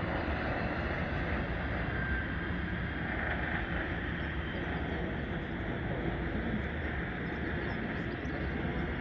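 Steady outdoor city background noise: a constant hum of distant road traffic, with no single sound standing out.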